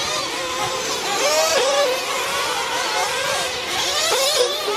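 Small two-stroke nitro engines of several 1/8-scale RC truggies whining at high revs, rising and falling in pitch as the cars race past. The whine is loudest about a second in and again near the end.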